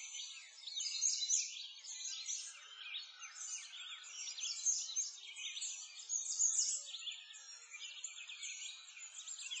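Many small birds chirping together in a dense, continuous chorus of quick, high chirps and short sweeps.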